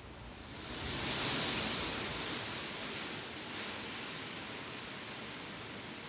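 Wind blowing through leafy trees, the leaves rustling. A gust swells about a second in and then slowly eases.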